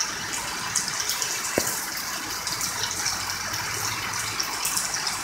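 Rain falling steadily, with water gushing and splashing onto wet concrete steps and a puddle.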